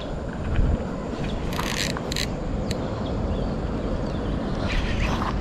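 Wind rumbling on the microphone, with a few short high hissing bursts about one and a half to two seconds in.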